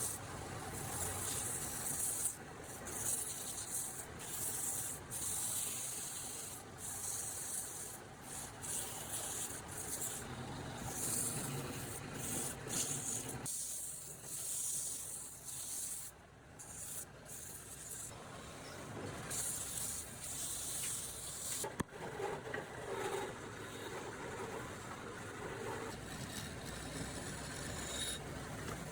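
Wood being hand-sanded in repeated back-and-forth strokes, a scratchy rubbing hiss that comes and goes about once or twice a second, easing off for a few seconds about halfway through.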